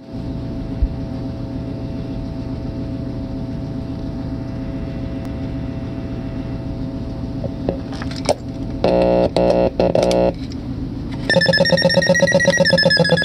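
Homemade crystal-radio noise synthesizer putting out a steady low droning buzz. A few clicks come near the middle, then three short bursts of a buzzy tone, and about eleven seconds in a louder, rapidly pulsing electronic tone starts.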